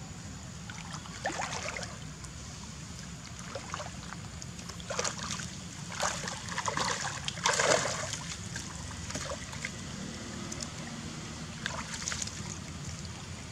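Monkeys splashing in shallow muddy water: a string of irregular splashes, the loudest about seven to eight seconds in, over a steady low rumble.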